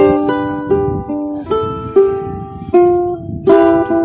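Ukulele played fingerstyle: a slow phrase of about nine plucked single notes and two-string chords, each ringing on into the next.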